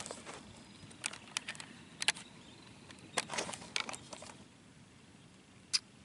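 Scattered short, light clicks and knocks of handling on the rifle and camera, in small clusters with pauses between, over faint outdoor background; no shot is fired.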